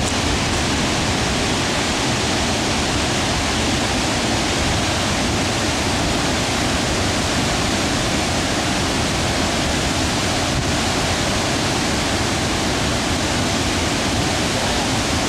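Large waterfall rushing steadily: a dense, even wash of falling water.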